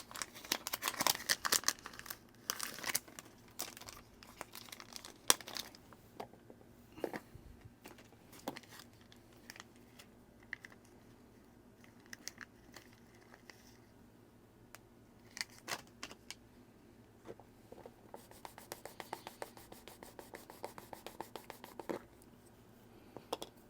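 Crinkling and scattered light clicks of small parts being handled while a new O-ring is fitted to the watch case. The crinkling is thickest in the first few seconds, and a quick run of fine clicks comes near the end.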